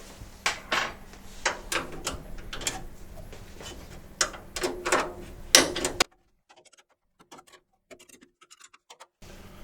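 A hex screw and nut being tightened by hand with a metal tool: a string of sharp metallic clicks and scrapes for about six seconds, then near silence for about three seconds.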